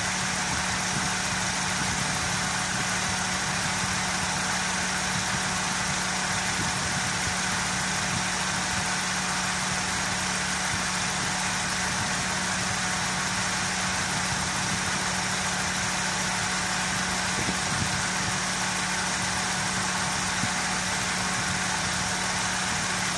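Toyota Corolla 4A-FE four-cylinder engine idling steadily with its electric radiator cooling fan running, the fan switched on by its original thermo-sensor circuit once the coolant has heated up.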